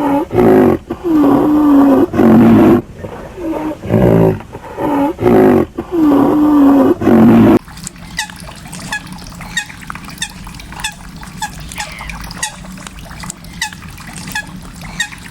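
Loud, repeated animal calls, each a pitched cry that slides in pitch, for about seven and a half seconds. It then changes abruptly to a quieter run of many short, high, falling chirps, a couple a second.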